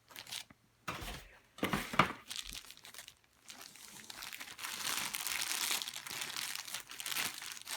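Packaging being handled and unwrapped: crinkling and rustling with some tearing. A few sharp crackles come in the first two seconds, then steadier rustling from about four seconds in.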